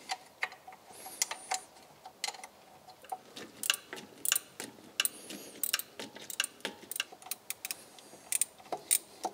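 Steel spanner undoing the thermostat housing bolts on an MGB engine: a string of sharp metallic clicks and ticks at an uneven pace, roughly two a second.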